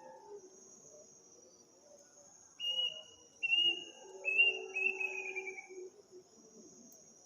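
A night bird gives four loud whistled notes in a row, the last one falling and wavering in pitch. Insects shrill steadily behind it.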